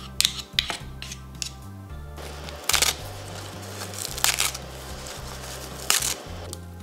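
Background music with a steady bass line. Over it, metal spoons click a few times against a bowl as miso paste is scooped in, then dry nori seaweed is torn by hand in three crisp, crackling tears.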